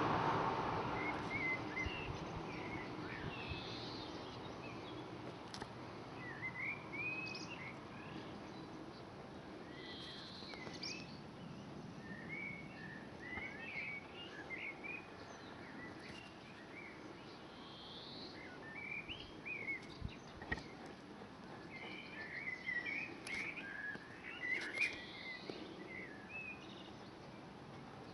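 Small birds chirping, scattered clusters of quick rising and falling notes that come thickest a few seconds before the end, over a faint steady background noise. A low rumble fades away over the first few seconds.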